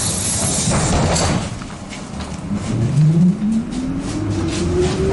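Trolleybus traction motor whining as the ZiU-682G trolleybus accelerates, the whine rising steadily in pitch from about halfway through, over rumble and road noise in the passenger cabin.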